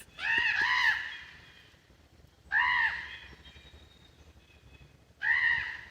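American crows cawing: a harsh double caw at the start, then single caws about two and a half and five seconds in.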